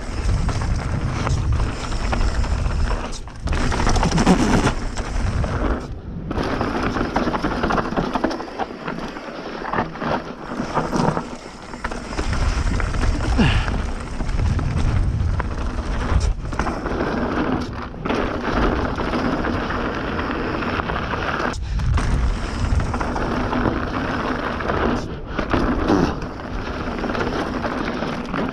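Bird Zero AM hardtail mountain bike descending a rough, dry trail: a continuous rumble of tyres over dirt and rock, with the bike rattling. There are several brief lulls where the noise drops away.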